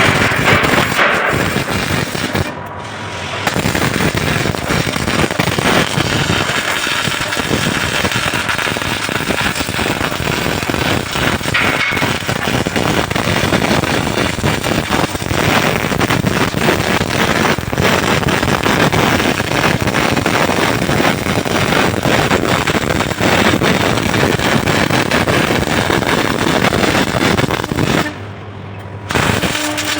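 MIG welding arc running as a dense, rapid crackle, stopping briefly about three seconds in and again near the end before the arc is struck again.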